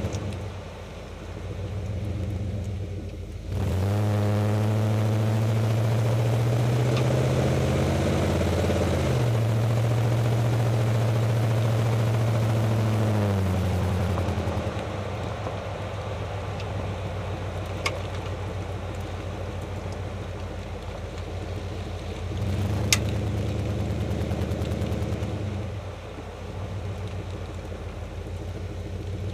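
Jeep Grand Cherokee WJ engine running, its pitch stepping up and down as it is revved or driven. A few single sharp knocks come through, one of them louder than the rest about 23 seconds in.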